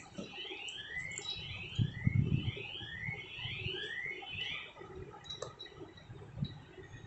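Rubber squeaky toy squeaking, pawed and bitten by a puppy: a quick series of short rising squeaks that stops about four and a half seconds in, with a dull knock about two seconds in.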